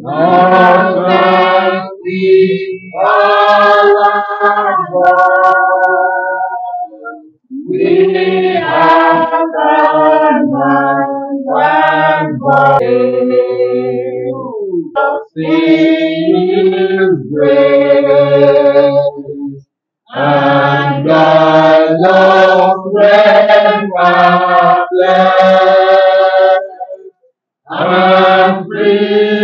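A small group of men and women singing a hymn together, unaccompanied, in phrases with a few short breaks.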